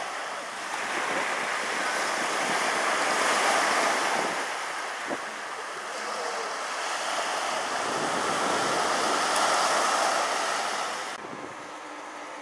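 Small waves breaking and washing onto a sandy beach, the rush of surf swelling and easing twice. A little before the end it cuts to a quieter background with a faint low hum.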